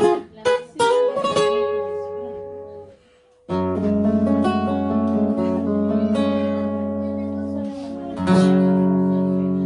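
Two guitars, an acoustic and an electro-acoustic, playing an Ayacucho-style serenade. A few sharp plucked notes and chords at the start ring out and fade into a brief pause about three seconds in. Then ringing strummed chords follow, with a fresh chord struck about eight seconds in.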